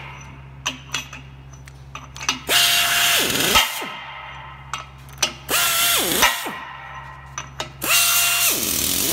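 Nut runner spinning up three times, breaking out nuts on a bolted pipe flange fitted with Velocity Washers. Each run is a rising whine that holds a steady pitch for about a second and winds down. Short metallic clicks come between the runs over a steady low hum.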